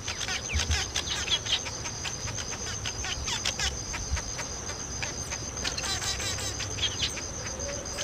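Southern masked weavers chattering at the nests: rapid buzzy chirps, clicks and short swept notes, over a steady high-pitched insect drone.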